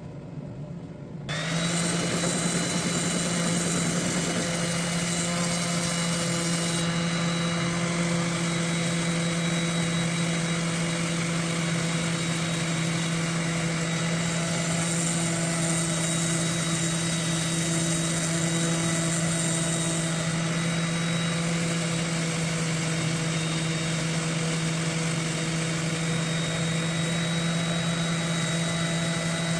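An electric workshop machine motor switches on about a second in and runs at a steady speed with an even hum and a few steady whining tones.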